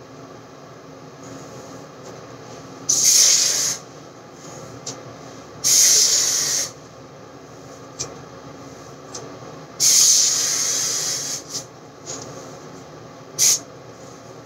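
Aerosol hairspray can sprayed in four bursts of hiss, the third the longest at about a second and a half, the last a short puff near the end.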